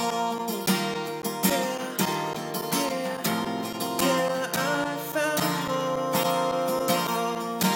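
Band music with guitar strummed in a steady rhythm, chords struck evenly under held melodic notes.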